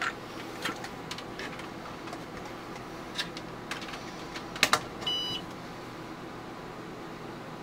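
IBM PS/2 Model 25 giving one short, high POST beep about five seconds in, the sign that its power-on self-test has passed, over a steady machine hum. A few sharp clicks come before the beep.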